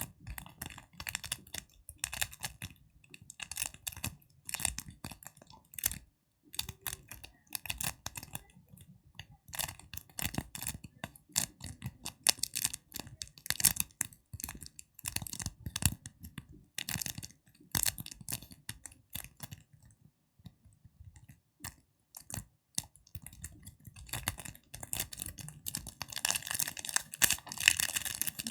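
ASMR tapping and crackling made by hand: quick, irregular clusters of small taps and crackles with short pauses, building into a denser run of crackling near the end.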